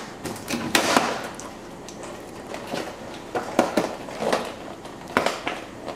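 Kitchen handling noises: several scattered knocks and rustles as empty food packaging is gathered up and thrown away.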